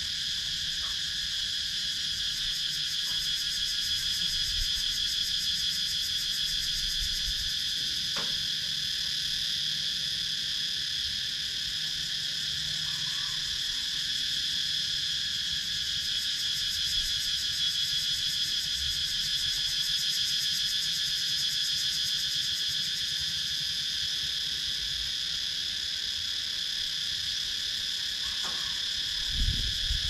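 A chorus of cicadas buzzing, a steady high-pitched, rapidly pulsing drone that never lets up. There is a brief low thump near the end.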